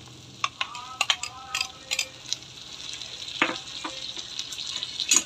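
Metal spatula scraping and clinking against a kadai while boiled taro leaves are turned into a frying mix of prawns and chana dal, over a steady frying sizzle. Scattered sharp clinks, the loudest near the end.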